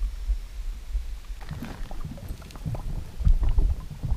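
Low wind buffeting on the microphone, then from about a second and a half in a run of irregular knocks, clicks and scraping rustles.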